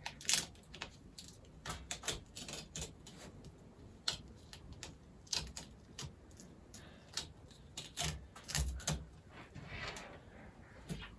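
Adhesive tape being peeled off a laptop's internal components, giving irregular sharp crackling clicks with a short hissing stretch near the end.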